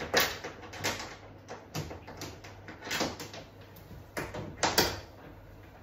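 Irregular knocks and clatters from handling in a plastic dog-bathing tub, about half a dozen, the loudest pair near the end.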